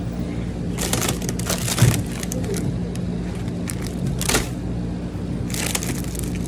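Steady low hum of grocery-store freezer refrigeration, with several short crinkly rustles.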